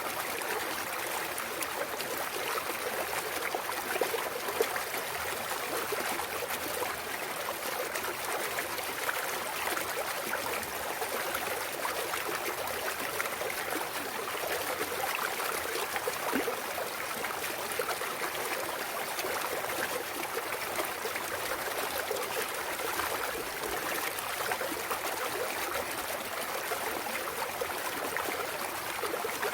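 Mountain stream running over rocks, a steady babbling and trickling of clear water.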